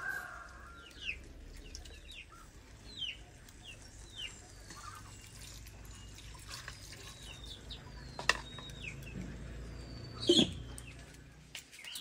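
Birds chirping, with many short falling chirps scattered through, over a low steady background hum. Two sharp knocks stand out, one about eight seconds in and a louder one about ten and a half seconds in.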